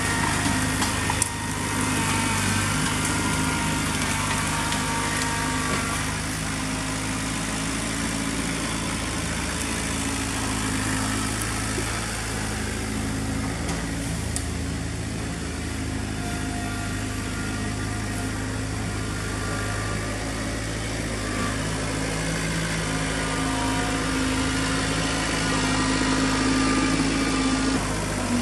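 Kubota B3030 compact tractor's three-cylinder diesel engine running steadily while working the front loader in brush, its pitch shifting a few times with throttle and load.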